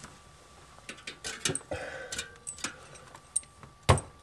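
Sharp plastic clicks and taps of a refrigerator defrost thermostat's wire connector and clip being worked loose by hand, with a louder knock near the end.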